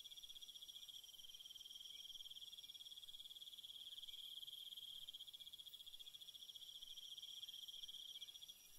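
Faint insects trilling: a continuous high, finely pulsing chorus.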